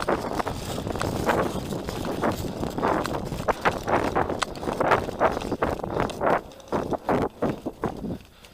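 Running footsteps in snow, a quick uneven beat that stops shortly before the end.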